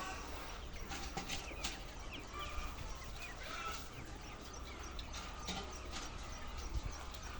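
A flock of chickens clucking and calling with many short overlapping calls, a few sharp clicks about a second in, over a steady low hum.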